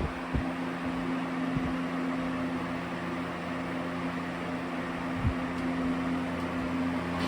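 Vornado Model 80 box fan running steadily: an even rush of air with a steady motor hum under it, and a soft knock about five seconds in.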